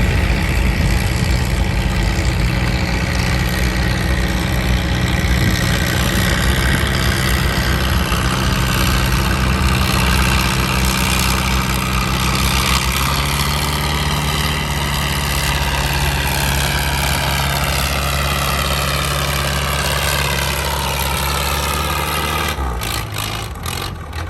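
Vintage farm tractor engine running hard under load, its pitch slowly sagging. The engine's low note shifts about halfway through and drops away near the end.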